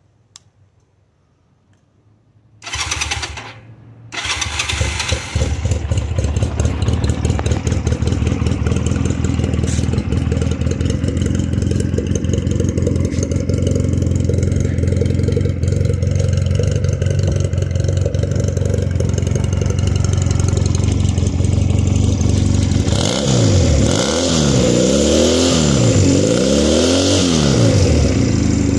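2006 Honda Rebel 250's parallel-twin engine being started: the starter cranks for about a second, a few seconds in, and the engine catches and settles into a steady idle. Near the end the throttle is blipped several times, the revs rising and falling.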